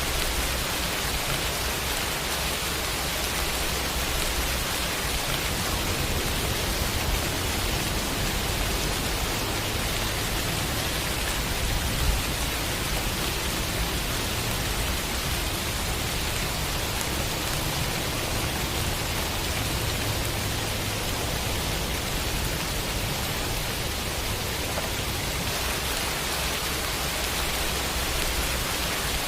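Rain sound effect: steady, even rainfall hiss with no pauses, and one brief louder tap about twelve seconds in.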